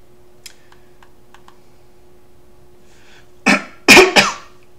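A man coughs into his hand, twice: a short cough about three and a half seconds in and a heavier one just after. A few faint clicks come before.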